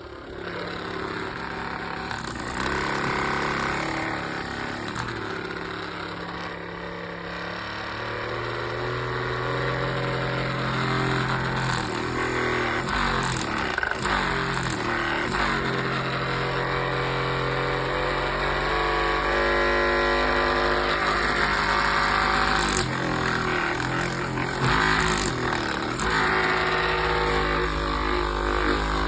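Taotronics TT-PCA004 massage gun's motor running with a steady buzzing hum. Its pitch shifts in steps several times as it is switched between speed levels.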